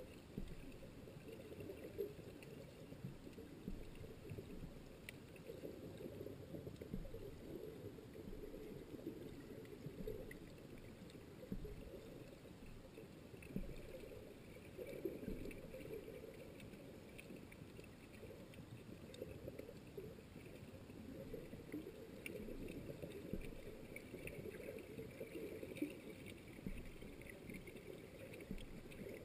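Muffled underwater ambience picked up by a camera submerged in its waterproof housing: a low, uneven rumble of moving water with a few faint clicks.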